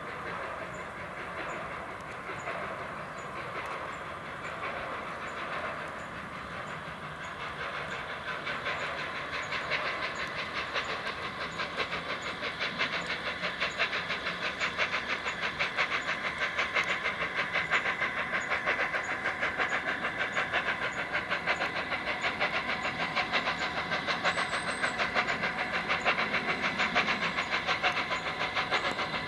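Flying Scotsman, a three-cylinder LNER A3 steam locomotive, working a train. Its quick, even beats grow steadily louder over the second half as it draws nearer.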